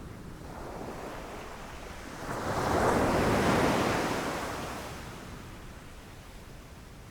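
Ocean waves breaking on the shore: one wave crashes about two seconds in, swelling quickly, then washes back and fades slowly. Wind noise on the microphone underneath.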